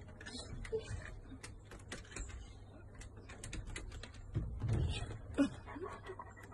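Scattered light clicks and taps from a large dog walking across a wooden deck with a wire exercise pen around its body: claws and the pen's wire frame knocking on the boards. A brief, somewhat louder low sound comes about four and a half seconds in.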